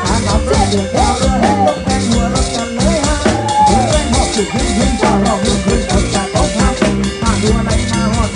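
Band music with a drum kit and bass keeping a steady beat and a melody line over it.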